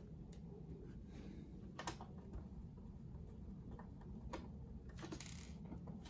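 Faint, scattered clicks and ticks of a screwdriver taking small screws out of a Dell Inspiron 15-3567 laptop's base, over a low steady hum.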